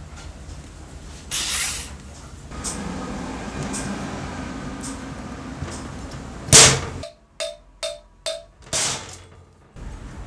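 Metal motor-housing parts of a circular saw being handled and fitted together by hand: scraping and rubbing, a loud knock about six and a half seconds in, then a few short clicks broken by abrupt silent gaps.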